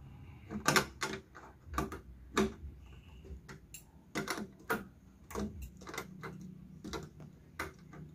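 10 mm wrench tightening the nut that locks an antenna's mounting clamp on its pipe, giving a run of irregular sharp clicks, about one or two a second.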